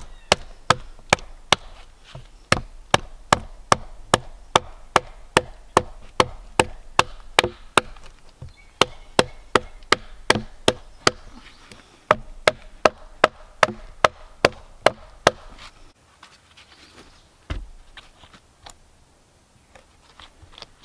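Camp hawk axe chopping into the top of a dead log, quick steady strokes about two to three a second with brief pauses, hewing the log flat for a bench seat. After about fifteen seconds the chopping stops, leaving a couple of single knocks.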